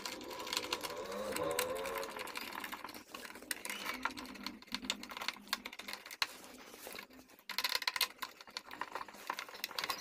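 Hand screwdriver turning screws into the plastic back panel of a Kent RO water purifier: a run of quick, irregular clicks and scrapes.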